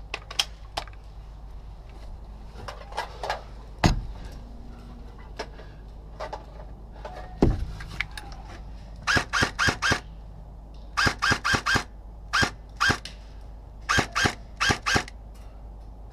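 Airsoft guns firing quick strings of single shots, three to five sharp cracks at a time in several bursts over the second half. Two heavier thumps come earlier, about 4 and 7.5 seconds in.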